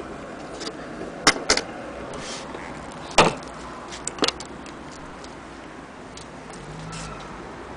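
Sharp clicks and knocks from a Singer semi-industrial sewing machine being handled on its wooden base, as its metal parts and the tipped-up head are moved. There is a pair of clicks about a second in, the loudest knock a little after three seconds, and two more around four seconds.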